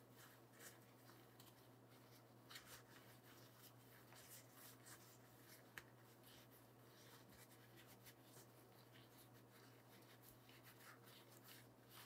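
Near silence: faint, scattered rustling of a paper shop towel rubbing grease off a bike hub and its end cap, over a low steady hum.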